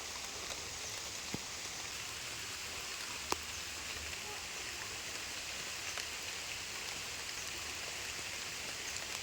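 Steady rain falling, an even hiss with scattered drop ticks and one sharper tap about three seconds in.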